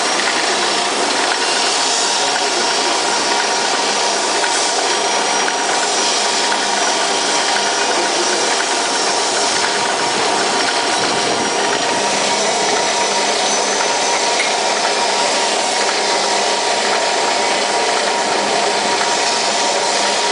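Sesame milling machine running steadily while milling sesame seed: a loud, even mechanical noise with a faint steady hum underneath.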